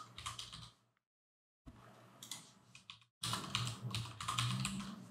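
Typing on a computer keyboard: a short run of keystrokes, a pause of about a second, a few fainter taps, then a longer, steadier run of typing from about three seconds in.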